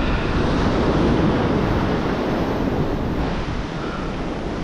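Ocean surf breaking and washing up a sandy beach, a steady rushing wash, with wind buffeting the microphone.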